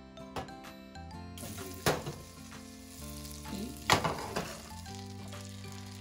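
Butter melting and foaming in a hot frying pan, sizzling steadily; the sizzle grows louder and brighter about a second and a half in. Two sharp clicks stand out, about two and four seconds in.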